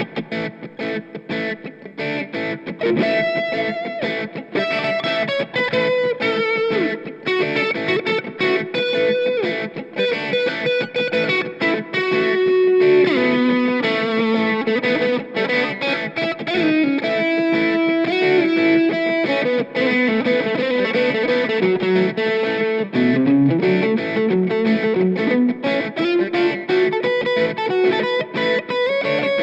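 Squier Classic Vibe Telecaster Custom electric guitar played as a demo: single-note lead lines with several string bends, mixed with chords.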